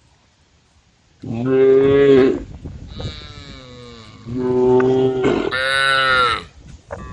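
Cows mooing to the herd: three drawn-out moos, starting about a second in, the last one higher-pitched.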